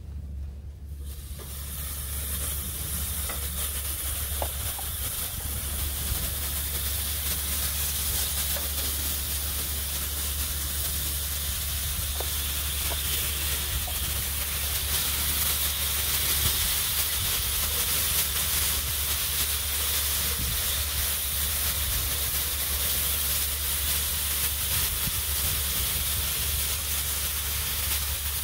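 Diced New York strip steak in its wet lime, soy and oil marinade sizzling on the hot steel top of a Blackstone griddle. The sizzle rises over the first couple of seconds as the meat hits the steel and then holds steady, over a steady low hum.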